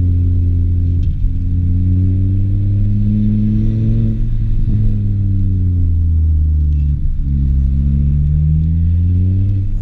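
Stage 2 Volvo C30 T5's turbocharged 2.5-litre inline five-cylinder through a straight-pipe exhaust, heard from inside the cabin while driving: a deep drone whose pitch rises over the first few seconds, falls back, drops briefly about seven seconds in, then climbs again.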